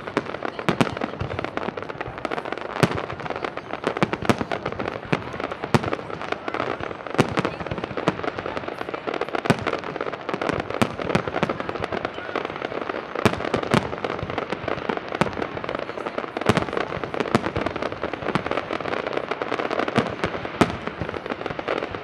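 Fireworks display: aerial shells bursting in a dense, unbroken barrage of sharp bangs, several each second, with a steady din of bursts between them.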